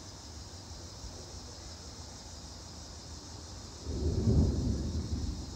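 A low rumble of thunder starts suddenly about four seconds in and fades over a second and a half, over a steady chorus of crickets.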